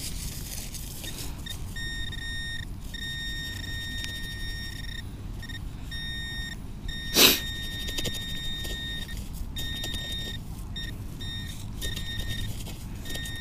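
Minelab Equinox 600 metal detector sounding a high-pitched target tone that keeps switching on and off in beeps of varying length as the coil passes over scattered metal. A single sharp knock about seven seconds in is the loudest sound.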